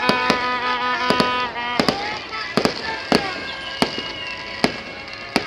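Aerial fireworks bursting: about a dozen sharp bangs, irregularly spaced and some in quick pairs, over music.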